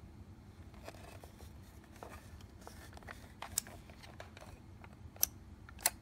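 Plastic fiber-optic connector cleaning cassette handled and turned over in the hands: faint rubbing and tapping with a few sharp plastic clicks. The loudest clicks come about three and a half, five and a quarter, and just under six seconds in.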